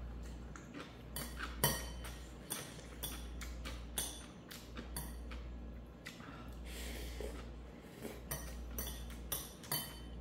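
Eating utensils clinking and tapping against a dish while ramen is eaten, in irregular light clicks, over a low steady hum.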